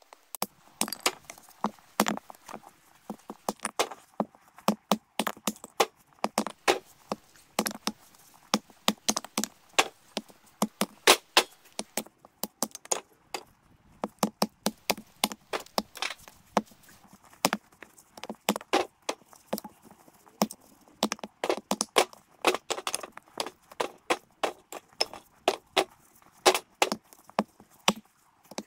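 Pieces of split birch firewood knocking and clattering against one another, several sharp wooden knocks a second in an irregular run.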